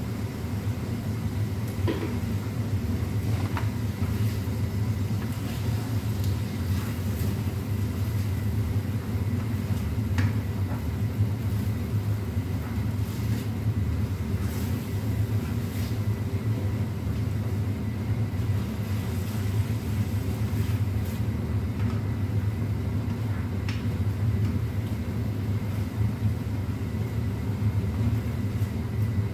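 Kitchen range hood extractor fan running with a steady low hum, while a utensil stirs in a pan on the gas hob. A few light clicks of the utensil against the pan come through, about four times.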